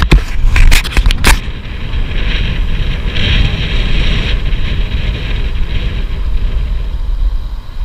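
Wind noise on the microphone of a camera riding on a moving tandem bicycle, a steady low rush, with a quick run of sharp knocks in the first second and a half.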